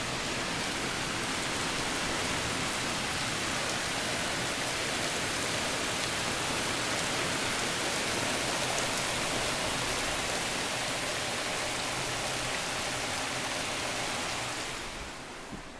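Torrential rain pouring down in a steady, even hiss, fading away in the last second or so.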